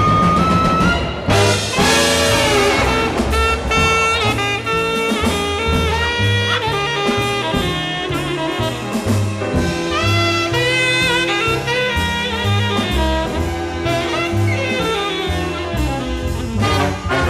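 Background jazz music: brass instruments play a melody over a moving bass line.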